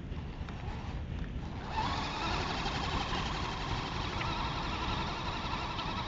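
Axial SCX10 1/10-scale RC crawler's electric motor and gearbox whining under load as it claws up loose sand. The whine gets stronger about two seconds in and then holds steady, over a low rumble.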